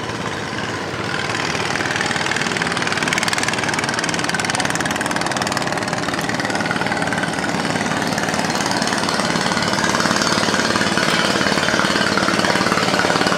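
Long-tail boat engine running steadily and loudly, growing louder about a second in.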